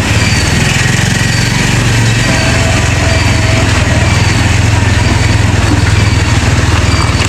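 Motorcycle engine running steadily at low riding speed, heard from the rider's seat, with wind noise on the microphone.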